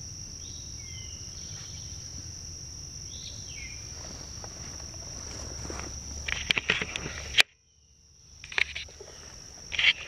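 A steady, high-pitched chorus of crickets or similar insects, with two short falling bird chirps in the first few seconds. From about six seconds in, loud knocks and rustles of the wooden stick and camera being handled, with the sound cutting out abruptly for a moment at an edit.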